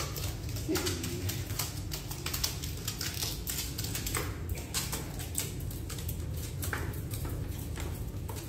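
Rapid, irregular pattering of many small taps and clicks: a group of rockhopper penguins' feet slapping and claws clicking as they hop down stairs and waddle across a hard floor.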